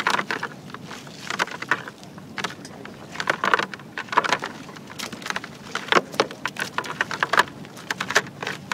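Wet cast net being shaken out over a plastic bucket, with irregular clusters of clicks and patters as the catch and dripping water fall in.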